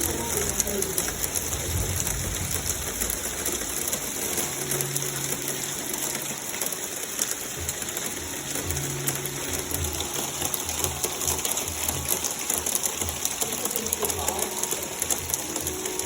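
Heavy rain with hail pelting down: a dense, steady hiss full of fine rapid ticks.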